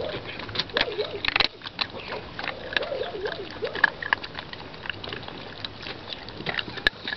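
Puppies eating dry kibble from a metal bowl: a busy run of crunching, lapping and small clicks of teeth and kibble against the bowl, with short wavering whimpers a few times in the first half.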